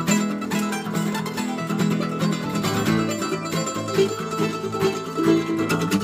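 Mandolin and acoustic guitar playing a bluegrass tune together: the mandolin picks quick notes over the guitar's strumming.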